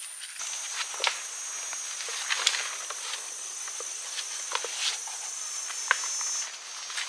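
A steady, high-pitched chorus of forest insects that swells about half a second in and drops away near the end, over scattered light crackles of footsteps.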